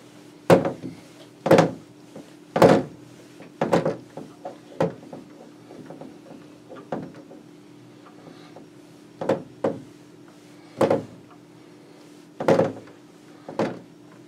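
Whiteboard being wiped with a handheld eraser: about a dozen short rubbing strokes against the board at uneven intervals, several in quick succession at first, then sparser, then a cluster near the end.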